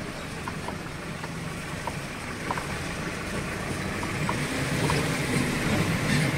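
Vehicle engine running with road and wind noise, growing louder from about four seconds in, with scattered light clicks or rattles.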